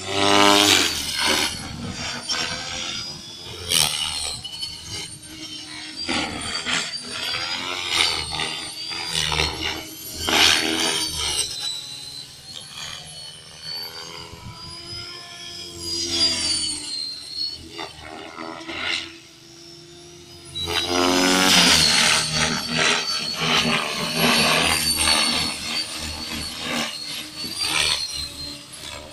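Align T-Rex 550L electric RC helicopter in flight: motor and gear whine over the chop of the rotor blades, the pitch gliding up and down as it swoops about. It is loudest on two close passes, about a second in and again about 21 seconds in.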